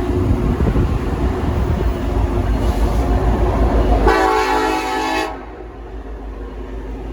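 Wind buffeting the microphone over the low rumble of a diesel freight train, then about four seconds in a single short blast of a locomotive's air horn, about a second long, sounding as a chord.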